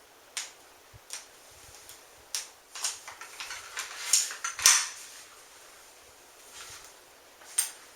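Scattered metallic clicks and knocks of a Mossberg 500 pump shotgun being taken apart by hand as a pin is worked out of it. About eight separate short clicks, the loudest a sharp knock about halfway through.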